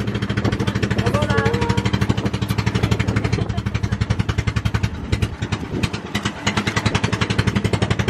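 Boat engine running steadily under way, a loud, fast, even chugging beat.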